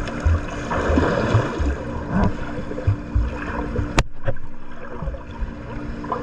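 Water churning and sloshing around a swimmer doing breaststroke or butterfly, with irregular low thumps, a faint steady hum, and one sharp click about four seconds in.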